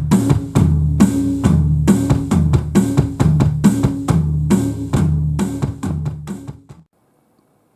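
Drum kit playing a steady groove of kick, snare and cymbal hits over a bass line, then stopping abruptly near the end, leaving silence.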